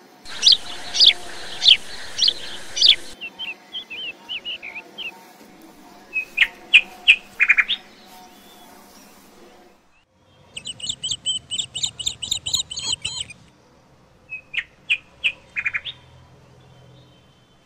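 Birds chirping: short, high calls repeated quickly in several separate stretches, with brief pauses between them.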